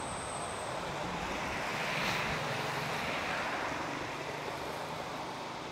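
Steady rushing outdoor noise that swells briefly about two seconds in, with a short faint high tone near the start.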